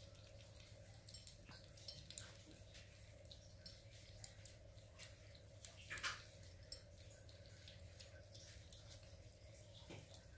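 Bengal kittens chewing raw chicken: faint, scattered wet clicks and squishes, slightly louder about six seconds in, over a low steady hum.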